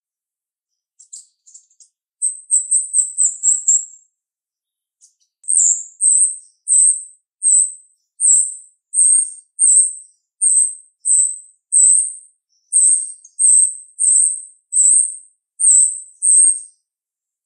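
Female jalak rio-rio (grosbeak starling) calling with sharp, high chirps. A quick run of notes comes about two seconds in, then after a short pause a steady series of single chirps, roughly one every three-quarters of a second.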